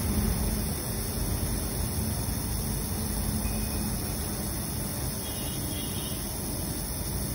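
SABALON 420 mL aerosol hair spray can spraying continuously with its nozzle held down, a steady hiss.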